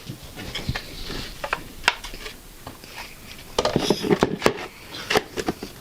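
Plastic parts of a Henry vacuum cleaner's switch housing being handled and pushed back into place: scattered light clicks and knocks, busier after about three and a half seconds.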